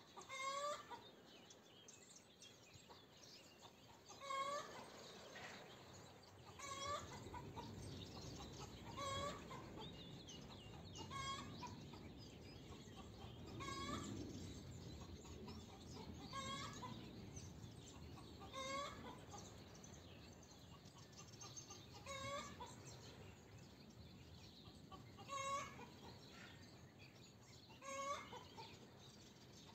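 A free-ranging hen clucking, one short call every two to three seconds, about a dozen in all. Small birds chirp faintly in the background, and a low rumble swells and fades through the middle.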